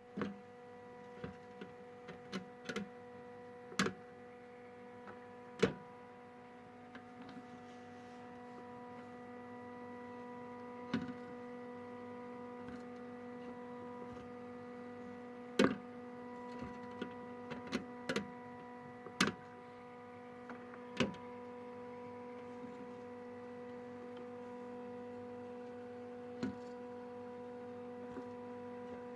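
A steady electrical hum throughout, slightly louder from about eight seconds in, with scattered sharp clicks and knocks at irregular intervals.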